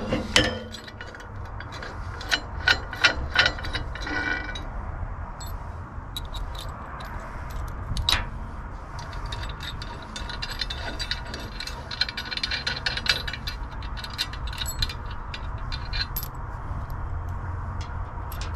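Metal clicks and clinks from a steel caster leg of a welding table being handled and set for height against the perforated steel table top, with a bolt drawn out of the leg's height-adjustment holes. Scattered sharp clicks come in the first few seconds, one louder knock about eight seconds in, and a stretch of quick rattling clicks about ten to thirteen seconds in.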